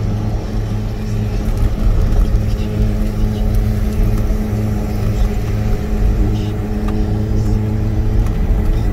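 Steady engine drone and road rumble heard from inside a car driving at constant speed, the pitch holding level with no revving.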